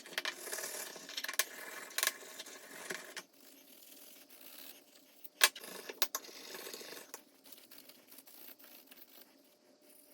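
Small metal objects being handled: light clinks, taps and scraping, busiest in the first three seconds, with two sharper clicks about five and a half and six seconds in.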